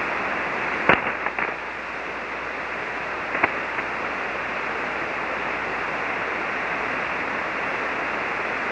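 Steady static hiss from an SSB ham radio receiver on an open HF channel between transmissions, cut off above the voice band. A few sharp clicks come about a second in and again around three and a half seconds.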